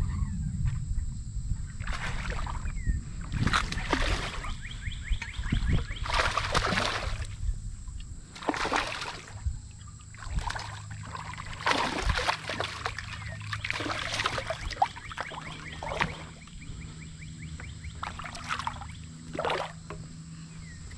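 Water splashing beside a kayak as a hooked smallmouth bass is fought to the boat, with repeated splashes a second or two apart.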